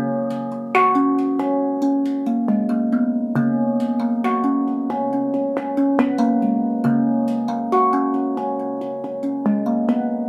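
Tuned steel percussion of the handpan family played by hand: a continuous melody of struck notes, each ringing on with overtones while new notes start over it.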